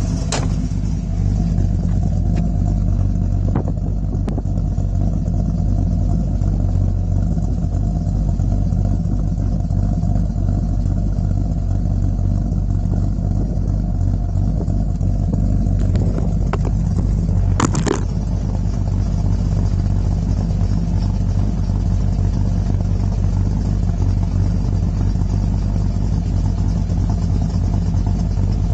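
347 cubic-inch stroker small-block Ford V8 with AFR cylinder heads idling steadily, heard through a full 2.5-inch exhaust with Borla mufflers.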